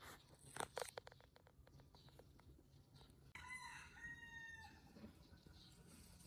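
A couple of sharp clicks and a run of faint ticks, then one drawn-out animal call lasting about a second and a half.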